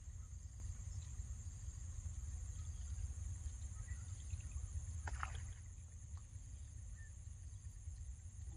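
Open-air ambience: a steady low rumble of wind on the microphone under a constant high-pitched hiss, with one short call about five seconds in.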